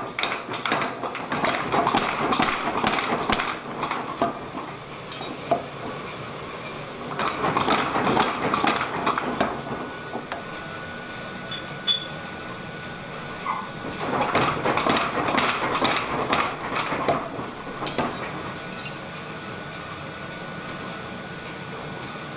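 500 lb Bradley power hammer striking hot steel in three runs of rapid blows, each a few seconds long, with pauses between them as a large swage block is forged. A thin steady whine comes in about halfway through.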